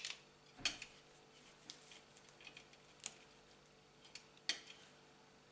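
Sprue cutters snipping plastic model-kit parts off the sprue: a few sharp, separate clicks, the loudest at the very start and about four and a half seconds in, with fainter ticks of plastic being handled between.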